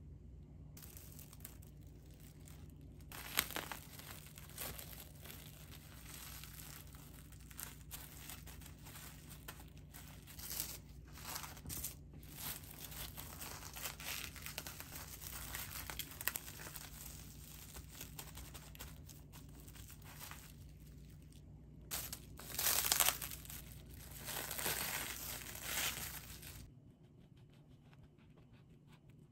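Plastic cling film crinkling and rustling in irregular bursts as it is pulled tight and wrapped around a sandwich. It is loudest a little over twenty seconds in. A steady low hum runs underneath and stops near the end.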